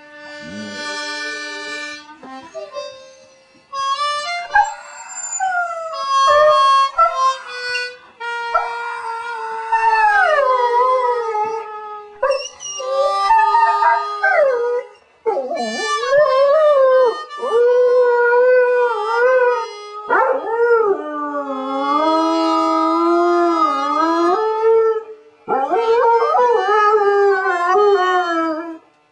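A dog howling along to a harmonica. The harmonica sounds chords and short runs while the dog answers with long howls that waver and slide up and down in pitch, broken by short pauses.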